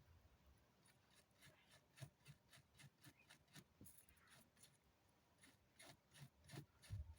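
Faint, irregular small clicks and taps, several a second, of hand work on a small object, with a couple of louder low knocks near the end.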